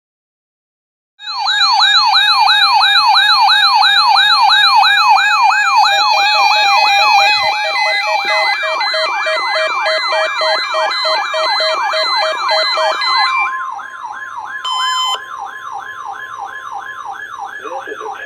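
Weather-radio receiver alarm set off by the weekly NOAA test: a loud electronic siren warbling up and down about three to four times a second, starting after about a second of silence. About halfway through, the broadcast's steady 1050 Hz warning tone joins it and stops near the end, with intermittent steady beeps alongside.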